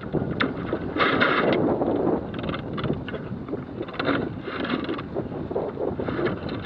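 Strong wind buffeting the microphone of a Pearson Ariel sailboat under sail in 20–25 knot wind, with a steady low rumble and repeated surges of rushing, splashing water along the hull as it plows through the swell.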